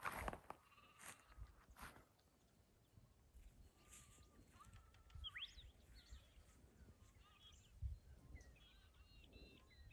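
Faint birdsong over a quiet rural background: scattered whistled calls, a quick rising note about halfway through and a run of short repeated notes near the end. A few soft knocks come in the first two seconds.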